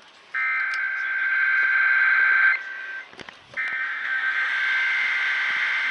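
Emergency Alert System SAME header data received off the air: two harsh buzzing bursts of data tones, each two to three seconds long, about a second apart, signalling the start of a required monthly EAS test.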